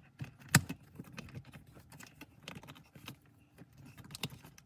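Wiring connectors and plastic console parts being handled and fitted: scattered light clicks and rattles, with a sharp click about half a second in.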